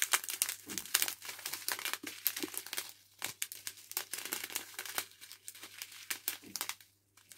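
Clear plastic zip bags of diamond-painting drills crinkling as they are handled, in irregular bursts that die down near the end.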